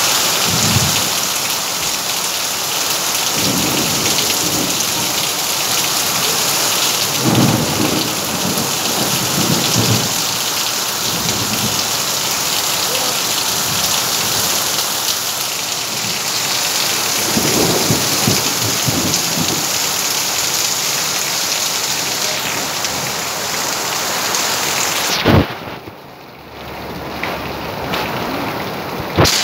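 Heavy tropical rain pouring steadily, with low rumbles of thunder swelling several times. A sharp click about 25 seconds in, after which the sound briefly drops away before the rain returns.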